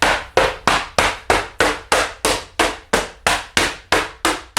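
Hammer blows in a quick steady rhythm, about three a second, knocking a board or its hold-down into place on a CNC machine's bed.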